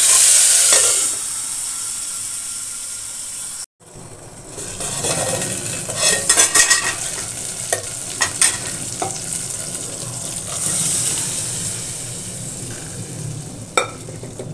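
Boiled masoor dal with bottle gourd poured into hot mustard oil tempered with garlic and dry chillies: a loud sizzle that fades after a second or so, then steady sizzling and bubbling as a spoon stirs and clicks against the metal pot.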